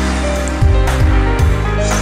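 Background music: a song with held chords and a steady drum beat.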